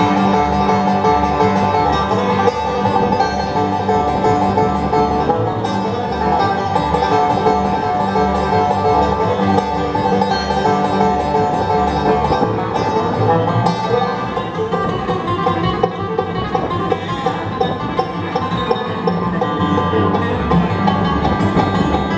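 Live bluegrass band playing an instrumental break with no singing: plucked strings over a steady, alternating bass line.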